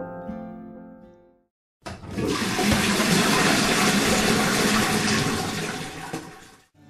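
A toilet flushing: a sudden rush of water that lasts about five seconds and fades out near the end. Before it, the last notes of acoustic guitar music die away into a moment of silence.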